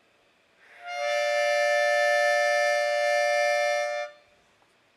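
Harmonica played on a long, slow in-breath: one steady chord of several notes, starting with a breathy swell about a second in, held for about three seconds and then stopping cleanly.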